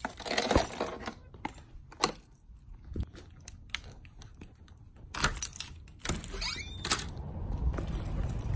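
Handling noise and a series of separate clicks and knocks as a door is opened and closed on the way out. From about six seconds in, a low steady rumble of wind on the microphone comes in.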